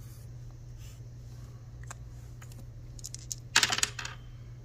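A pair of small dice thrown onto a tabletop: a quick rattling clatter of clicks about three and a half seconds in, after a few faint ticks earlier on.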